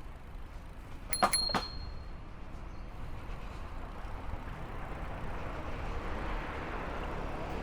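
Wind and road rumble while riding a bicycle, with a rush of noise swelling in the second half. About a second in, a bicycle bell dings once or twice with a couple of sharp clicks, its ring fading over about a second.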